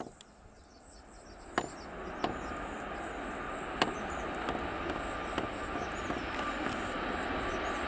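Jet engines of a Boeing 737 MAX 9 (CFM LEAP-1B turbofans) growing louder over the first two seconds, then a steady rushing noise with a thin whine. A few sharp clicks and high-pitched insect chirping sound over it.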